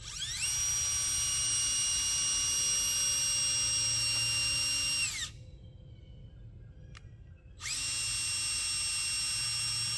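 Cordless drill running in two long runs: the motor whine spins up, holds steady for about five seconds and winds down, then starts up again about two and a half seconds later. A single sharp click falls between the two runs.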